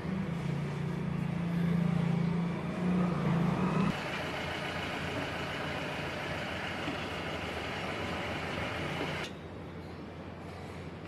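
Washing machine motor and gearbox running: a steady low hum for about four seconds, then a noisier whir that turns quieter near the end.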